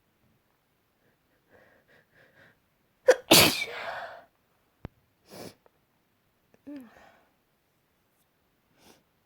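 A person sneezing loudly once, about three seconds in, after three short quiet breaths; the sneeze is set off by wood dust. A few fainter short breathy sounds follow.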